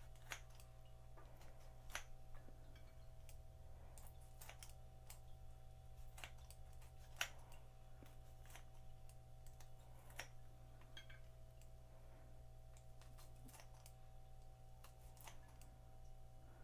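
Near silence: faint, irregular clicks and light taps from handling and weighing out pieces of baked tofu, over a steady low hum.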